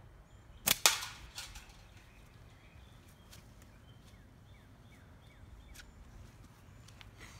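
Slingshot shot with GZK flat bands: a sharp snap as the bands are released, followed a fraction of a second later by a louder hit with a short ring as the shot strikes the target can.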